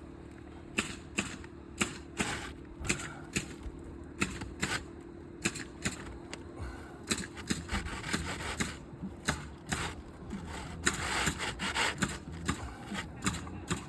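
Irregular clicks, taps and scraping as an asphalt 3-tab shingle is worked back into place under the course above it, with a longer stretch of scraping about eleven seconds in.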